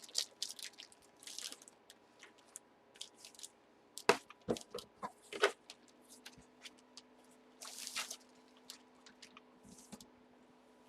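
Plastic packaging being worked open by hand: irregular crinkling, rustling and small clicks, with a couple of sharper snaps about four and five and a half seconds in.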